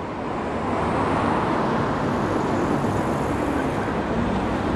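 Steady road traffic noise: cars driving along a busy multi-lane street, a continuous mix of tyres and engines that swells slightly after the first second.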